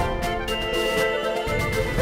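A music track made in the Music Maker JAM app: sustained chords that change every half second or so over a steady beat.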